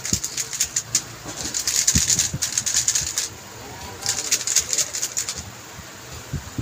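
QiYi M Pro magnetic 3x3 speedcube being turned quickly by hand, its plastic layers giving rapid clicking. There are two spells of turning, the second starting about four seconds in.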